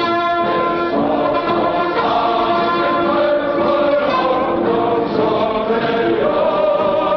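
Choir singing an anthem in slow, held chords.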